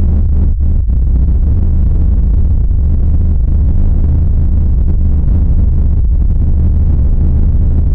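Loud, steady low rumbling drone, a creepy ambient sound effect with no distinct events.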